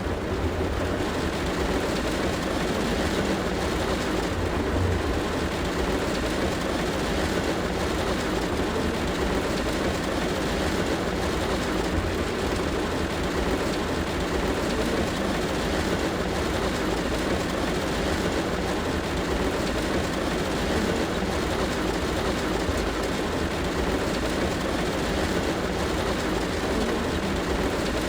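Heavy rain falling steadily on a car roof: a dense, unbroken patter of drops over a deep, even rumble.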